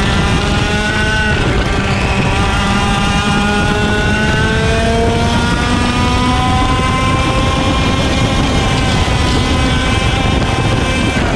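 IAME X30 125cc two-stroke kart engine at racing speed, heard from on board: its pitch climbs steadily for several seconds under full throttle down a straight, holds, then drops at the very end as the kart slows. Other karts' engines close ahead and a heavy wind and chassis rumble sound underneath.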